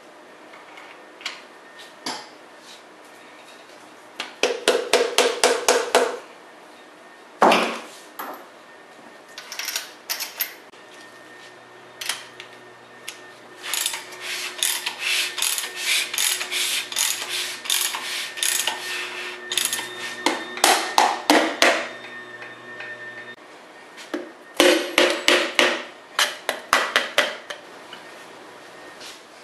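Runs of rapid, evenly spaced metallic clicks and taps from hand tools working on an engine block while a piston and connecting rod are being fitted. The clicks come several a second, in bursts of a few seconds, the longest lasting about eight seconds in the middle.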